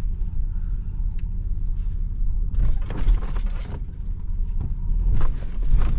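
Vehicle driving over a bumpy road, heard from inside the cabin: a steady low road rumble with bursts of rattling and knocks as the body jolts over bumps, about halfway through and again near the end.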